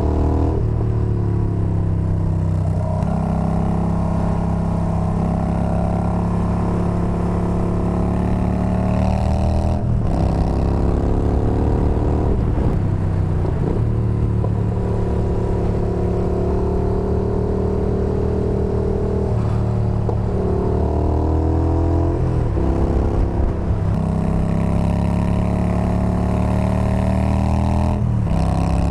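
Yamaha Bolt's air-cooled V-twin, fitted with a Bassani exhaust, under way on the road. Its note rises and breaks off several times as it shifts up, and holds steady at cruising speed between the shifts, with wind rush over it.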